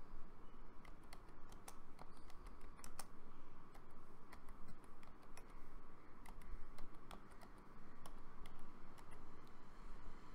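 Typing on a computer keyboard: irregular key clicks as a short phrase is typed out.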